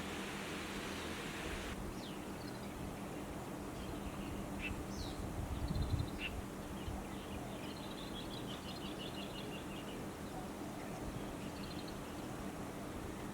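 Birds chirping, with scattered short calls and a quick run of repeated short notes a little past the middle, over a steady background hiss and low hum.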